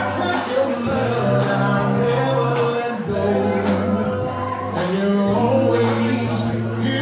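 Dance music with a singer over held bass notes that change every second or two.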